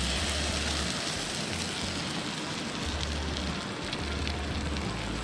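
Beaten eggs poured onto a hot camp griddle of sliced sausage, onion and zucchini, frying with a steady sizzling hiss. A low rumble comes and goes underneath.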